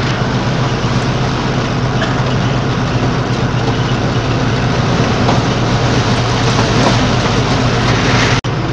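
Steady engine drone and road noise inside a moving vehicle's cab, with storm wind blowing. The sound cuts out for an instant near the end.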